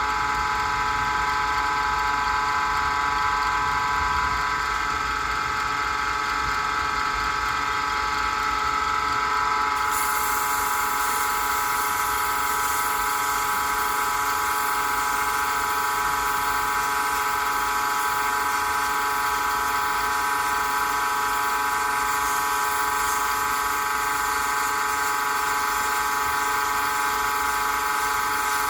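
Small wood lathe running at steady speed with a whine of stacked tones, spinning a pen blank. About ten seconds in, a high hiss joins as the spinning blank is worked.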